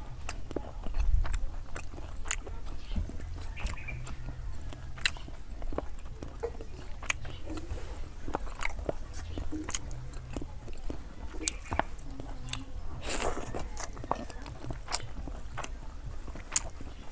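A person eating rice and fish curry by hand, heard close up: chewing and mouth clicks, with fingers working the food on a steel plate. A low steady rumble runs underneath.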